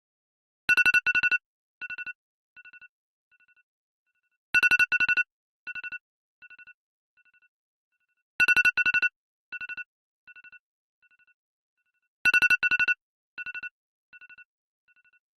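A phone's default electronic alarm tone: a quick cluster of beeps on one pitch, followed by fainter echoing repeats that fade away, the whole pattern repeating about every four seconds.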